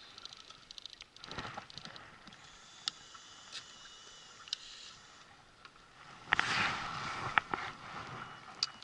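Small electric wakasagi (smelt) reel whining as it winds in the line, with a few sharp clicks. About six seconds in, a louder burst of rustling and knocks follows as the catch is handled.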